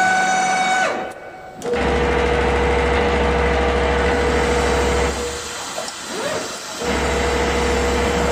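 Richpeace automatic sewing and embroidery machine starting up and running: a motor whine that rises, holds briefly and falls away in the first second, then from about two seconds in a loud steady mechanical run with a constant whine and a low hum. The run dips for a second or two in the middle, with a short rising whine, and then resumes.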